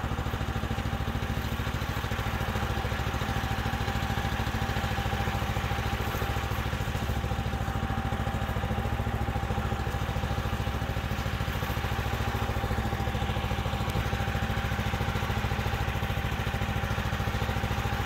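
Harbor Freight band sawmill's Predator gasoline engine idling steadily, its pitch and loudness unchanging, with the saw head not in a cut.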